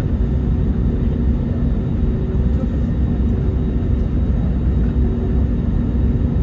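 Airbus A321 cabin noise: the steady low rumble of the jet engines and airflow, with a faint even hum on top.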